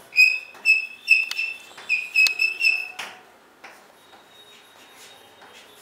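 Chalk squeaking on a blackboard as words are written: a quick run of short, high squeaks, about seven in three seconds, then only faint scratches.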